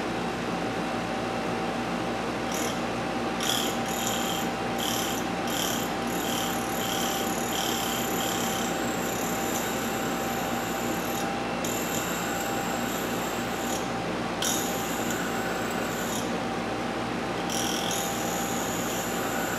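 Dremel-type cutoff disc spinning on a motor-driven arbor, running with a steady whine, grinding down a worn clock hammer tail. The high grinding hiss comes and goes: about eight short touches early on, then longer passes.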